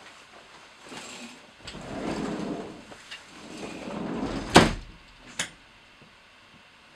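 Drinking from a mug: two soft sips or gulps, then the mug set down on a wooden table with one sharp knock, followed by a lighter click.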